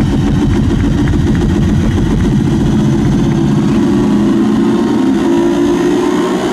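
Loud electronic dance music from a live trance DJ set played over festival speakers, with a dense rumbling bass and sustained synth tones that bend slightly upward in the second half.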